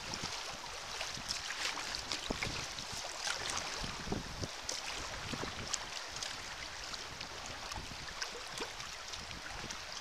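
Sea water lapping and splashing around a sea kayak as it is paddled: many small, irregular splashes over a steady wash.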